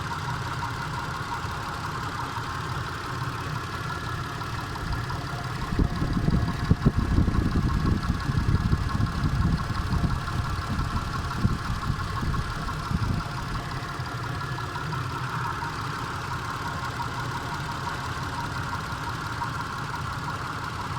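Mitsubishi Pajero 4's 3.8-litre V6 engine idling with a knock that the owner cannot identify. The low rumble grows louder and rougher, with irregular knocks, for several seconds in the middle, then settles back to a steady idle.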